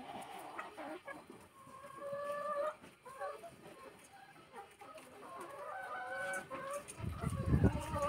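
A flock of chickens clucking, with two drawn-out calls, one about two seconds in and one about six seconds in. A loud low rumble comes near the end.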